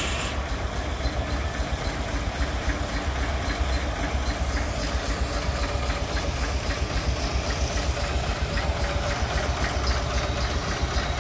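Keck-Gonnerman steam traction engine running steadily with a quick, regular beat over a low rumble.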